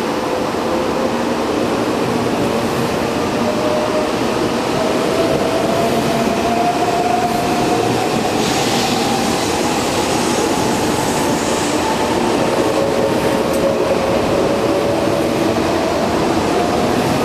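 Shinkansen 300 series train pulling out, its traction motors whining in a slowly rising pitch over the loud, steady rumble of the wheels and running gear.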